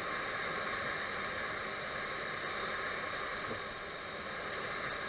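Boeing 737 flight-deck noise during taxi: a steady, even rushing hiss with no distinct tones, heard from inside the cockpit.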